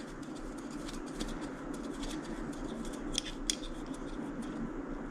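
Metal calipers being handled and set to size, giving small scattered metallic clicks over a steady low hum.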